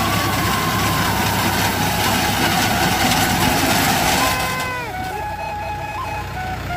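Tractor engine running steadily while its front-mounted rice reaper cuts standing paddy, with a dense mechanical clatter that drops away about two-thirds of the way through. Background music with a melody plays over it.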